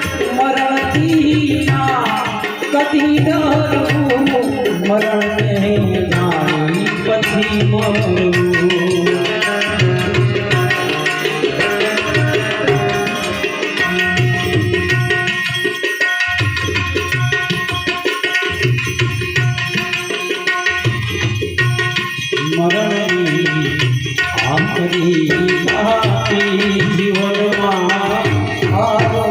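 Instrumental passage of a Gujarati santvani devotional song: tabla keeping a steady rhythm under a harmonium melody.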